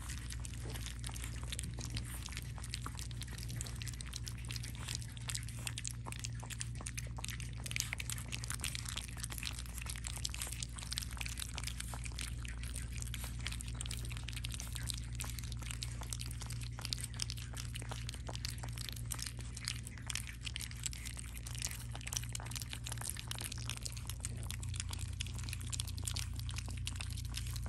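Four-week-old French bulldog puppies lapping and smacking at wet weaning mush in a stainless-steel feeding dish: a dense, continuous patter of small wet clicks over a steady low hum.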